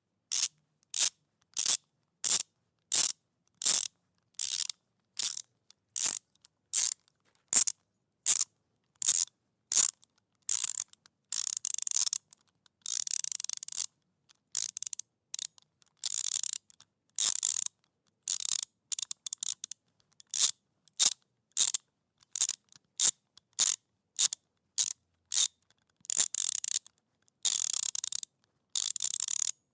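Socket wrench ratcheting as it tightens a bolt: short bursts of clicking, about three every two seconds at first, then longer runs of rapid clicks from about ten seconds in, separated by brief silences.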